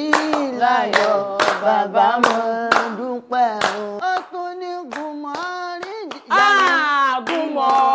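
A small group singing church choruses, with hand clapping about twice a second that thins out about halfway through; the singing gets louder near the end.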